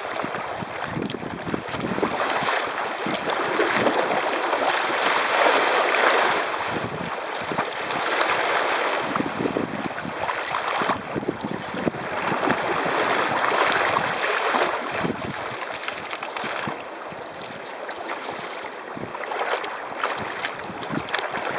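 Water rushing and splashing along the hull of a sailing kayak as it runs fast through choppy waves, mixed with wind buffeting the microphone. It swells and eases every few seconds as the boat surges on the waves.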